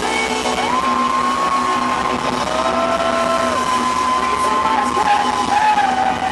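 Live rock-pop band playing in a stadium, heard from within the audience over crowd noise. A long high note slides in and is held for about five seconds, dipping slightly near the end.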